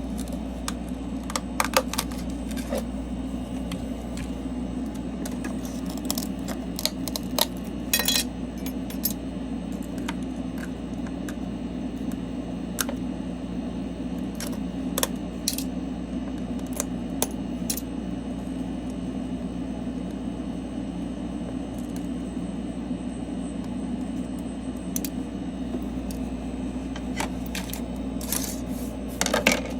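Small hard tools clicking and tapping against a phone screen and the workbench, in scattered bursts over a steady low machine hum.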